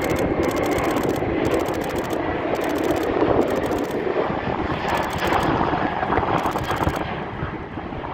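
Jet engines of a passing Qantas Airbus A330-200, a loud steady noise that peaks mid-way and eases slightly near the end. Wind rumbles on the microphone, and a DSLR shutter fires in about six rapid bursts of clicks.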